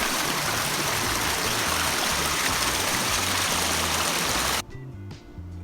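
Loud, steady rush of river water over background music with a low bass line; the water stops suddenly about four and a half seconds in, leaving only the music.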